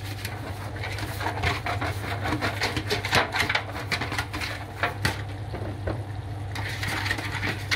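Silicone pastry brush dabbing and brushing oil over a disposable aluminium foil tray, giving irregular crinkling clicks from the thin foil over a steady low hum.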